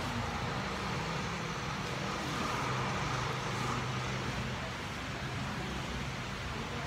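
Steady background hum and room noise, with a low even drone and no distinct event.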